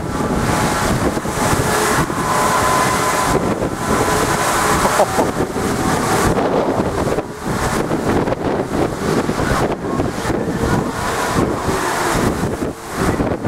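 Storm waves surging against a sea wall under strong wind buffeting the microphone: a loud, unbroken rush that swells and eases.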